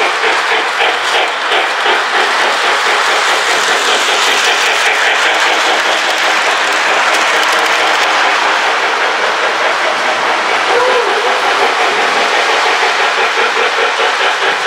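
Lionel toy train running on its track: a loud, steady rumble with rapid, even clicking of the wheels over the rails.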